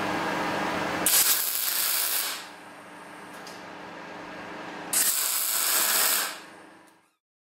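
Arc welding on a steel tube: two short bursts of welding, each a little over a second long, about four seconds apart, over a steady hum. The sound fades out near the end.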